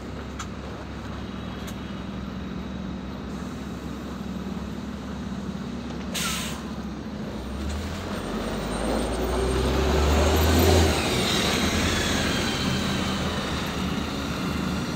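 LiAZ 5292.67 city bus idling at a stop. About six seconds in there is a short hiss of air as the brakes release, and then the engine revs up as the bus pulls away.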